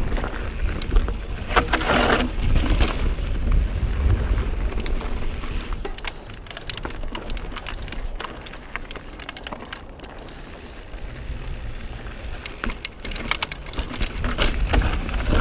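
Mountain bike descending rocky, chunky singletrack: tyres rolling over rock while the chain and frame rattle in many sharp clicks and knocks, over a low wind rumble on the microphone. About two seconds in there is a short gritty hiss.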